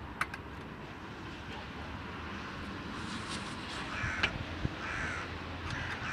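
A bird gives several harsh calls, about one a second, starting about three seconds in, over a low steady background, with a few sharp clicks.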